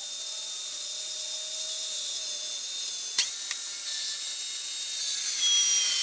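Handheld electric belt sander running with a steady high whine while a rough-cut wooden leg is pressed against the belt to flatten its uneven edges. There is a click about three seconds in.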